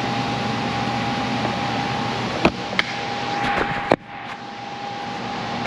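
Steady whirring hum of running shop machinery, with a thin steady tone through it. Sharp knocks from handling the camera come about two and a half, three and four seconds in, and the last is followed by a sudden dip in loudness.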